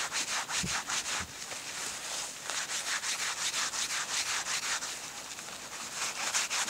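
Gloved hands scraping and rubbing packed snow blocks to carve them into shapes: a fast run of short, hissing scrape strokes, about four or five a second, easing a little in the middle.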